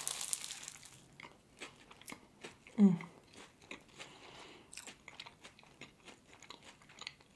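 Close-up bite into a flaky puff pastry soaked in maple syrup with pecans: a crisp, crackly crunch at the start, then chewing with small scattered crunches. A short hum from the eater about three seconds in.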